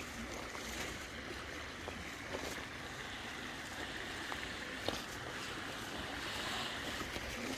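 Steady rush of a shallow creek's running water, with a few faint clicks scattered through it.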